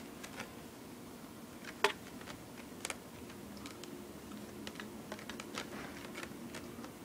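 Light, irregular clicks and taps of a kitten playing on a carpeted scratching post with a spring-mounted pompom toy. There is one sharper click about two seconds in.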